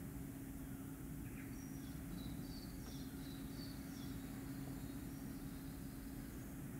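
Common starling singing faintly: a run of short high whistles and clicks from about a second and a half in to about four and a half seconds, over a steady low hum and rumble.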